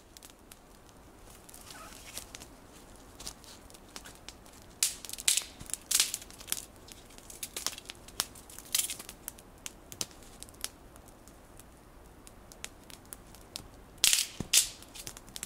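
Scattered sharp cracks and crunches of dry twigs and wood, loudest in a cluster about five seconds in and again near the end.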